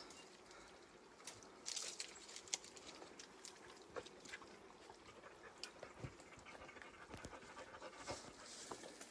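A person breathing hard, panting faintly after a steep uphill climb, with scattered small crunches and clicks of footing on rock and dry pine needles.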